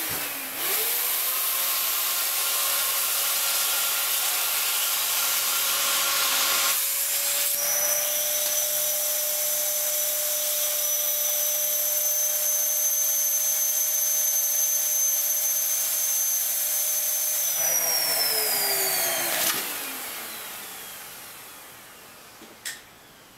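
Vacuum cleaner running with its hose in a plastic bag, drawing the air out of a cushion so the bag shrinks tight around it. About seven seconds in the motor's whine shifts slightly higher. Near the end it is switched off and the whine falls away as the motor spins down, followed by a single click.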